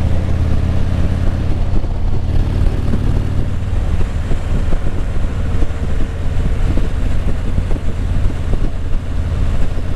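Motorcycle engine running and road and wind noise on the microphone while riding, a steady loud low rumble.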